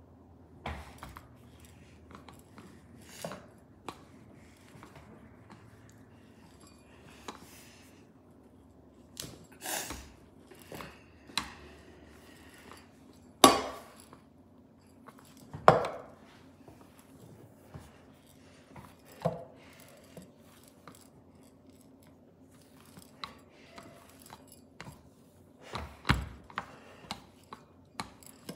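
Rolling pin working pizza dough on a stone countertop: irregular knocks and clacks as the pin bumps and rolls on the counter, two much louder knocks around the middle and a few more near the end.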